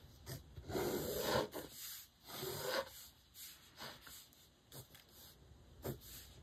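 Pencil scratching on workbook paper as straight lines are drawn: two longer strokes in the first three seconds, then a few short ones and a light tap near the end.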